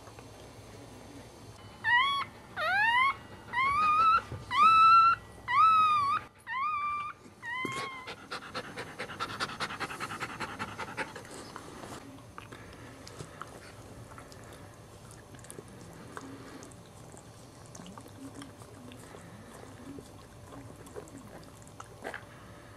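Newborn Cairn Terrier puppy squealing: about seven short, high, rising cries in quick succession. Then wet licking sounds, quick and close together at first and fainter later, as the mother licks the puppy clean.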